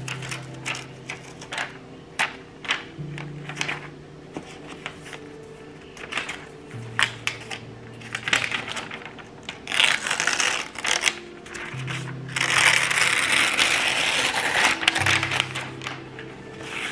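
Translucent protective wrap being peeled and pulled off a new iPad: light taps and clicks of handling, then a short burst of crinkling about ten seconds in and a longer, louder spell of rustling a little later. Soft background music with low held notes runs under it.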